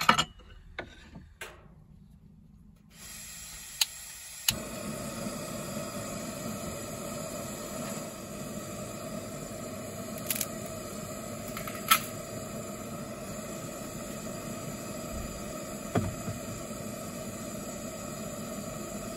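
Small gas-cartridge camping stove burner lit under a pot, hissing steadily from about four seconds in. There are a few sharp clicks near the start and a couple of metal knocks later as the pot and lid are handled.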